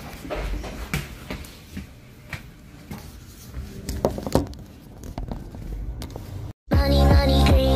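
Interior of an electric single-deck bus: scattered clicks and knocks over a faint low rumble. About six and a half seconds in, the sound cuts out for a moment and loud electronic music with a steady beat starts.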